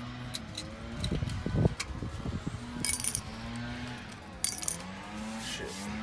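Metal parts clinking and knocking as an old brake caliper cover and its nuts are worked off a rear caliper: a few dull knocks about a second in, then two sharp metallic clinks.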